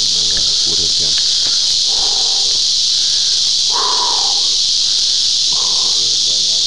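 Loud, steady chorus of insects in the forest: a constant high-pitched buzzing hiss with no breaks.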